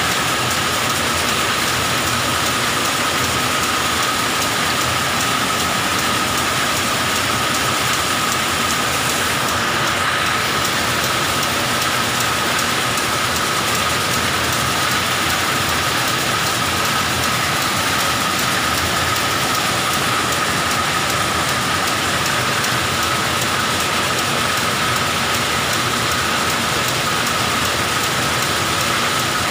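Polyester thread twisting and winding machines running: a dense, steady whir of many spinning spindles and reels, with one steady high whine above it.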